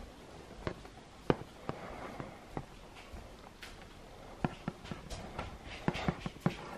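Scattered light clicks and knocks, irregular and a few a second: crockery and a stainless-steel milk jug shifting and clinking on a breakfast tray as it is carried.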